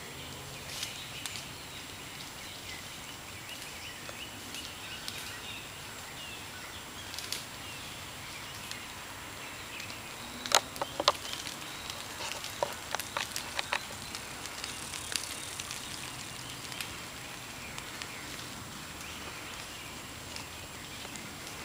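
Woodland ambience: a steady outdoor hiss with scattered faint bird chirps, and a cluster of sharp clicks and snaps about halfway through.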